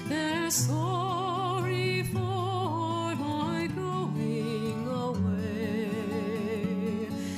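Background music: a melody in long held notes with strong vibrato over sustained low notes.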